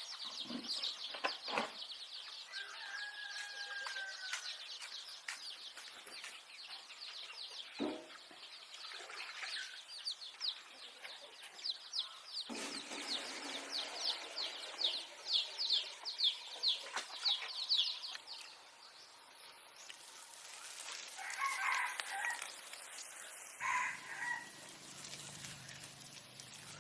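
Farmyard chickens calling, with a rooster crowing, over rapid high bird chirps that run through most of the stretch. A few dull knocks come near the start and about eight seconds in.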